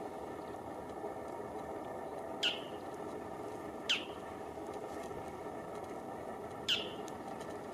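Bull-headed shrike calling: three sharp, clear single notes, each a quick downward-sweeping squeak, spaced a second or more apart over a steady low background hum.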